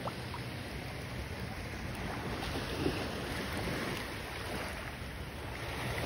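Gentle surf washing over wet sand at the water's edge, a steady hiss of shallow water.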